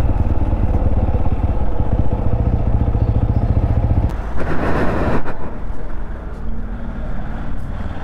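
TVS motorcycle's single-cylinder engine idling with a steady, rapid beat, then stopping about four seconds in. This is the engine whose tappets the owner says have worked loose and made it noisy. A short rustling rush follows about a second later.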